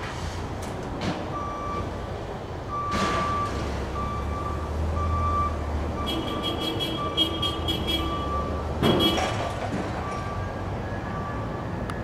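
A vehicle's reversing alarm beeping steadily, a little under twice a second, over a low engine rumble that swells in the middle. Two short whooshes, about three seconds in and near nine seconds, and a brief rattling chatter between them.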